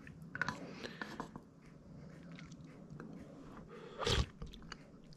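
A person eating a spoonful of chicken and potato soup close to the microphone: soft chewing with a few small clicks in the first second and a half, and a brief louder sound about four seconds in.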